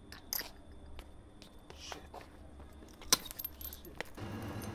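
Scattered light clicks and clinks, the sharpest and loudest about three seconds in, over a low background hum. Near the end a steadier, louder hum comes in.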